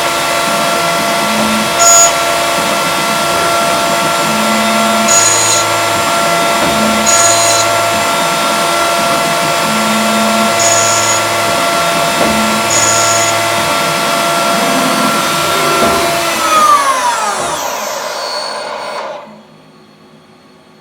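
CNC milling machine running: a steady high spindle whine with short low hums from the axis drives coming and going. Near the end the spindle winds down with falling pitch and stops.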